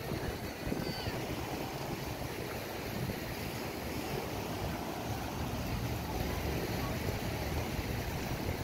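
Beach ambience: a steady wash of small surf and wind, with wind on the microphone, and faint voices of people nearby.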